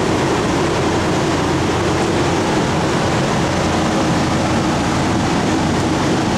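Garmat paint spray booth's ventilation fans running, a loud, steady rush of moving air with a low hum beneath it.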